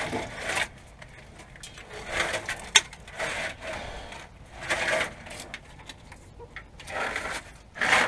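Rustling and scraping handling noises come in short bursts every second or two as a wiring harness is worked along the underside of a truck frame, with one sharp click near the middle.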